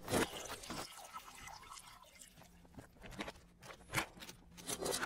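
Faint crackling static with hiss and irregular clicks and pops over a low hum, as the title card breaks up into TV-static interference.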